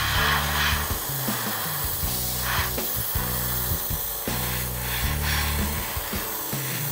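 Background music with a slow bass line, over a few short hisses of an airbrush spraying primer, the loudest right at the start.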